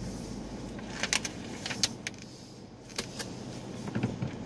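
Car rolling slowly to a stop, its low road rumble dying away about a second and a half in, then several light clicks and rattles inside the cabin.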